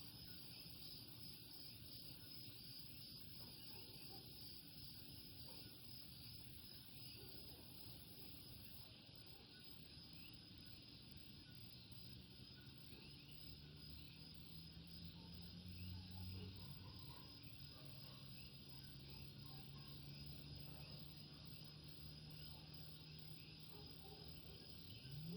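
Faint night chorus of Puerto Rican coquí frogs calling over a steady insect hum. A low drone joins about halfway through.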